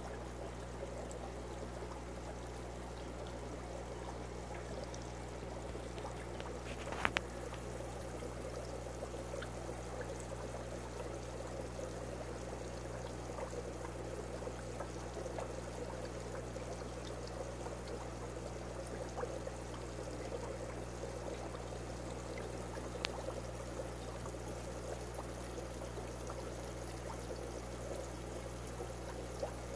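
Steady trickle of water in a turtle tank, with a low steady hum underneath. Two brief clicks, a third of the way in and again about three quarters through.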